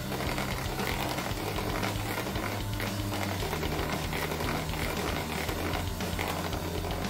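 Electric hand mixer running steadily, its twin beaters whipping a thick, creamy mixture in a plastic bowl, with background music over it.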